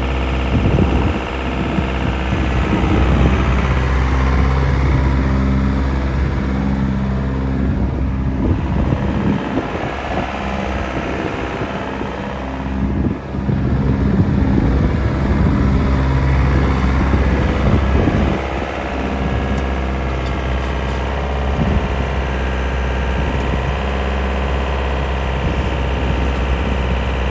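Volvo EC55B midi excavator's diesel engine running steadily, its loudness dipping and swelling a few times.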